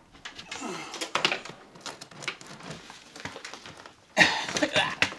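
A bundle of plastic-sheathed electrical cables rustling, scraping and knocking as it is hauled up the wall and through the ceiling framing by hand, with a louder burst of scraping about four seconds in.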